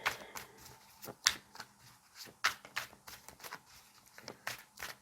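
Tarot cards being shuffled and handled: a run of quick, irregular card snaps and flicks.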